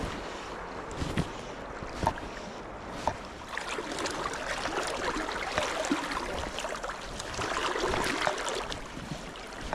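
Flowing river water around a wading angler, an even rushing noise. There are sharp clicks about a second apart in the first three seconds, and from about three and a half seconds the noise grows denser and rougher.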